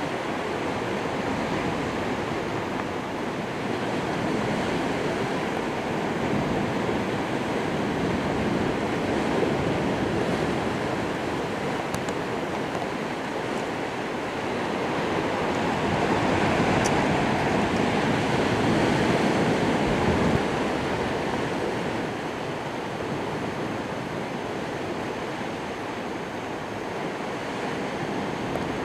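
Steady wash of rough sea and surf, with wind. It swells a little louder midway, then eases.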